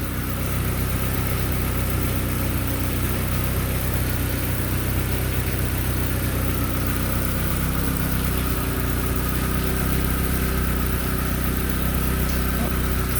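1997 Mazda Miata's turbocharged 1.8-litre four-cylinder idling steadily, just started for the first time after a turbo kit install.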